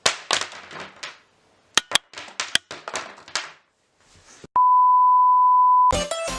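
A steady, single-pitch censor bleep lasting about a second and a half, starting about four and a half seconds in. It is preceded by scattered rustling and sharp clicks.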